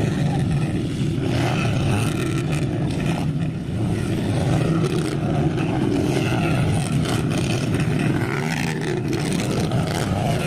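Several motocross dirt bikes' engines running together as the bikes race around a dirt track, a loud, unbroken, overlapping engine noise.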